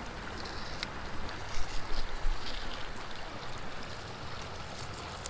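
Steady rush of a shallow creek with some low wind rumble, and a few light ticks around two seconds in.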